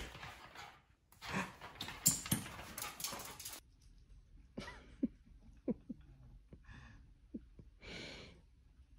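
Small dog scuffling and breathing excitedly, then a few brief, thin whimpers and short huffs while its teeth are being brushed.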